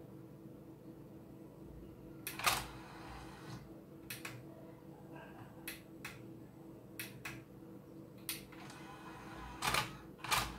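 Faint steady hum from an opened-up Bang & Olufsen DVD-1 player running with its Philips disc mechanism, with about ten irregular sharp clicks and knocks over it, the loudest about two and a half seconds in and near the end.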